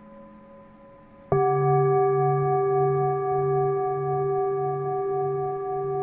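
A Tibetan singing bowl is struck about a second in and rings on with several steady tones, slowly fading, with a slow wavering pulse about one and a half times a second. Before the strike, the fainter ring of a lower-pitched bowl is dying away.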